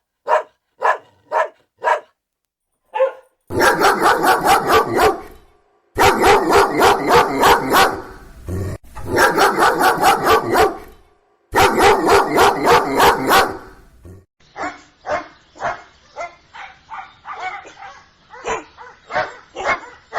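Dogs barking in a run of spliced recordings: single barks about two a second at first, then several bursts of rapid, loud barking. In the last few seconds comes a quieter recording of quick, repeated barks.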